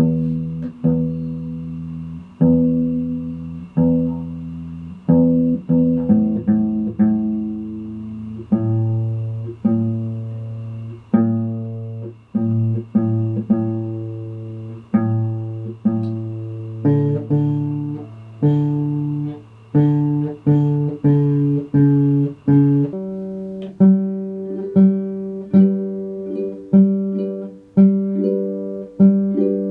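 A guitar playing plucked single notes and chords, each striking sharply and ringing out before the next, about one to two a second. About three-quarters of the way through, the notes move up to a higher register.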